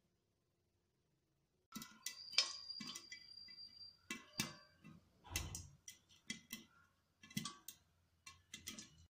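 Popcorn kernels popping in a covered steel pan: irregular sharp pops and ticks against the lid, starting a couple of seconds in.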